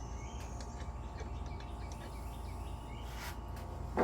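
Steady low background hum with faint bird chirps, and a brief soft scrape about three seconds in.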